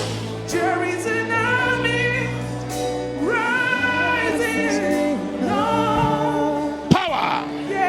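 Gospel worship music: voices singing long, held, wavering notes over a steady low accompaniment.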